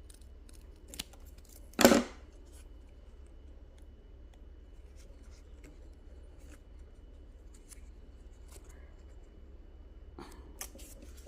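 Scissors cutting a strip of pandanus leaf: one loud snip about two seconds in, with a smaller click before it and faint clicks and rustles of the leaf, and a few more near the end.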